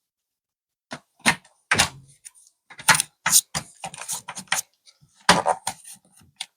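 Laptop back cover being fitted back onto the base: a run of irregular sharp clicks and light knocks, starting about a second in.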